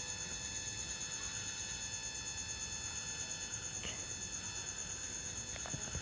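Faint steady high-pitched trill over low background noise, with several fainter steady tones beneath it and a couple of faint clicks near the end.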